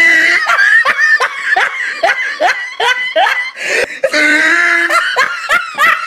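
A person laughing in a quick run of short bursts, about three a second.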